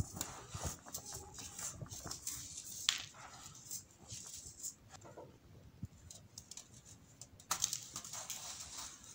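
Hands crushing packed baking soda cups in loose baking soda powder: irregular crunching and crumbling crackles, quieter in the middle, then a louder burst of crunching near the end as powder sifts through the fingers.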